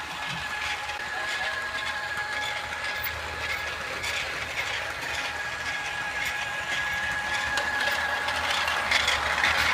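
Battery-powered Lego Duplo motorized train running along plastic Duplo track, pushing the Duplo Spencer engine. Its small motor gives a steady high whine, with light clicks of wheels on the track, and it grows a little louder near the end.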